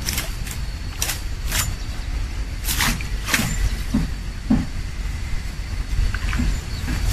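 A person wading through shallow water and deep mud: irregular splashes and heavy sucking footsteps, over a steady low rumble.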